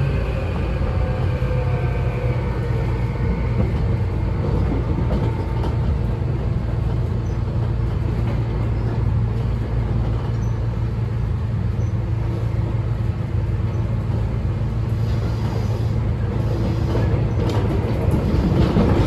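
Inside a Tobu 9000 series chopper-controlled electric motor car while it is running: steady rail and traction rumble with the chopper and motor whine, its tones falling in pitch over the first several seconds as the train slows. The running noise gets louder near the end.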